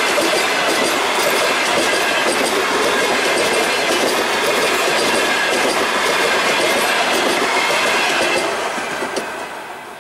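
Passenger coaches rolling past at speed: a steady rumble of steel wheels on the rails, with clicks over the rail joints and a thin ringing whine above it. The sound dies away from about eight seconds in as the last coach passes.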